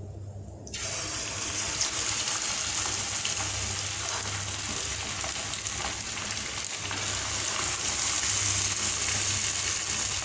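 Hot oil in a stainless steel kadai starts sizzling suddenly, less than a second in, as cornflour-and-egg battered chicken pieces are dropped in, then keeps up a steady deep-frying sizzle with small crackles.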